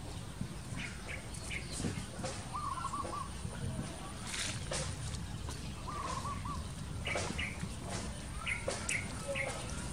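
Birds chirping: scattered short chirps and, twice, a short warbling call, over a steady low background rumble.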